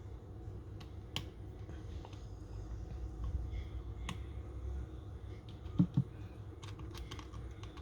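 Small clicks and taps of tiny screws, a precision screwdriver and a plastic camera body being handled as the screws go back in, with two dull knocks in quick succession about six seconds in.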